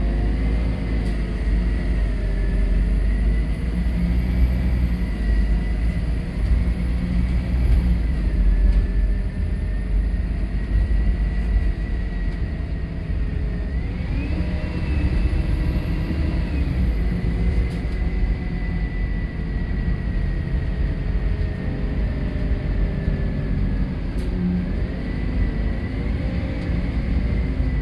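City bus heard from inside the passenger saloon while driving: a steady low engine rumble, with a drivetrain whine that rises and falls in pitch as the bus speeds up and slows down, climbing sharply about halfway through and again near the end.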